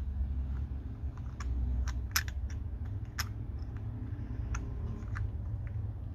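Irregular light clicks and taps of a brass trench-art lighter, made from a 30 mm shell, being turned over in the fingers, over a low rumble of handling noise.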